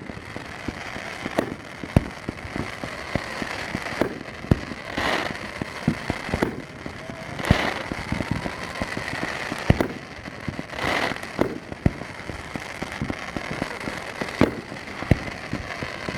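Aerial fireworks going off: a steady run of booms at uneven spacing, with three longer crackling bursts about five, seven and a half and eleven seconds in.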